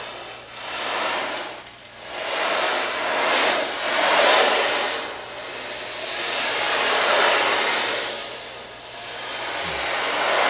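Ocean drum tilted back and forth, the beads inside rolling across the head in a wash of hiss that swells and fades slowly about four times, imitating the sound of waves.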